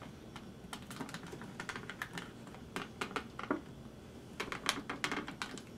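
Small metal screwdriver bits and tools clicking and rattling against each other in a plastic tool case as a hand rummages through it, in a few scattered clusters of light clicks.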